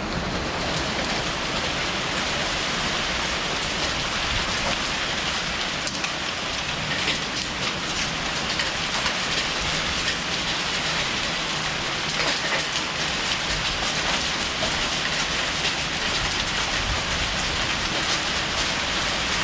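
Heavy wind-driven downpour with hail: a steady hiss of rain on surfaces, dotted with many small sharp ticks of hailstones striking.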